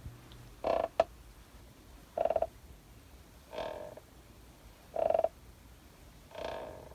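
Rocking chair squeaking as it rocks: a short pitched squeak about every one and a half seconds, five in all, with a sharp click just after the first.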